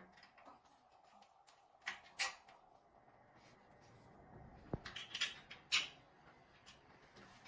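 Light scattered clicks and taps of small metal parts being handled as a door fastener is fitted and screwed tight onto a portable wood stove with a hex key, with a pair about two seconds in and a cluster around five to six seconds in.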